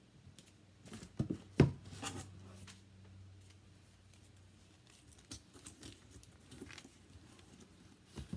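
Duct tape crinkling and being pressed onto the cardboard inside of a box, with a few sharp knocks about one to two seconds in as the box is handled on a wooden table, the loudest near the middle of that cluster.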